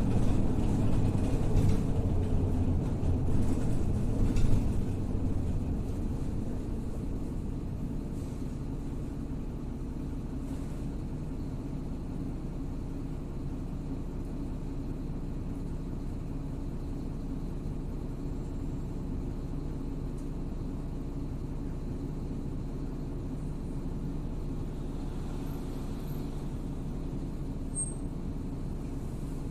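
Inside a MAZ-103 city bus: engine and road rumble while moving for the first few seconds, dropping about five seconds in to a steady, quieter engine hum as the bus stands idling.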